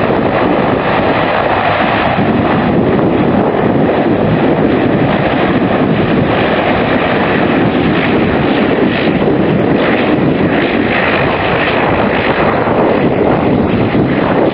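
Twin turboprop engines of a Dash 8 airliner running as it taxis onto the runway: a loud, steady rush with no clear tone, mixed with wind buffeting the microphone.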